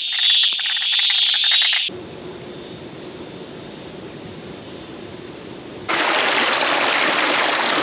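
A night chorus of frogs calling in fast pulsed trills, cut off abruptly about two seconds in. A quieter steady hiss follows, then from about six seconds floodwater rushes loudly over the edge of a track.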